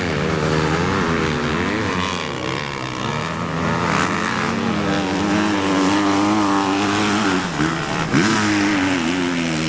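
Motocross bike engine revving, its pitch rising and falling with the throttle, then holding steadier, with a quick drop and climb in pitch near the end.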